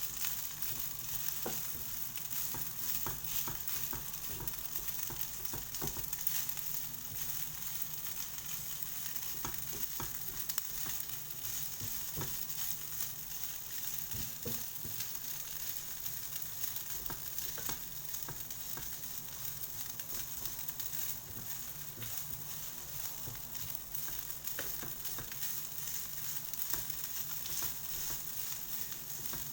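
Rice stir-frying in a hot pan: a steady sizzle with scattered clicks and scrapes from the stirring.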